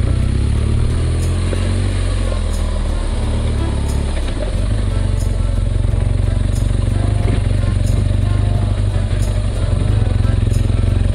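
Motorcycle engine running steadily as the bike rides along, dipping briefly about four and a half seconds in.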